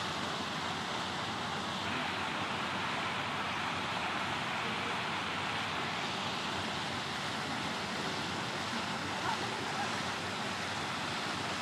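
Steady, even rushing background noise with no clear single event.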